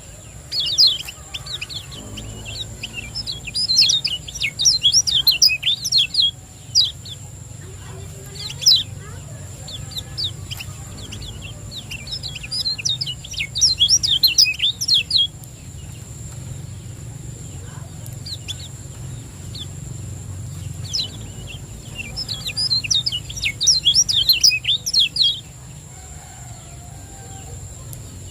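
Kecial kuning (Lombok white-eye) singing in quick bouts of high chirps, each about two seconds long. The bouts come three times, with single sharp notes between them, over a steady low hum.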